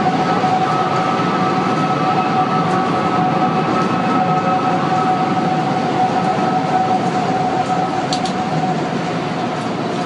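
Wind whistling around One World Trade Center, which appears to come from the tower on very windy days: a steady two-toned whistle over a loud, steady rush of wind. The higher tone fades out about halfway through and the lower one a couple of seconds before the end.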